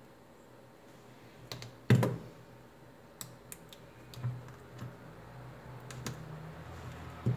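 Metal tweezers and small phone parts clicking and tapping as a power-button flex cable is handled and fitted into a phone's frame: a series of sharp, irregular clicks, the loudest about two seconds in.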